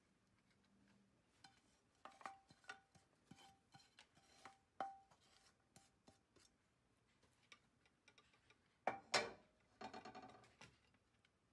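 Wooden spatula scraping stir-fried anchovies from a pan and pushing them into glass containers: faint scattered scrapes and light knocks, with a louder run of scraping strokes near the end.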